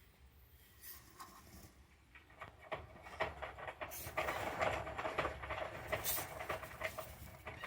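A pet hamster rustling and scratching in its cage: a dense run of fast, dry scratchy clicks that builds up from about two and a half seconds in and fades near the end.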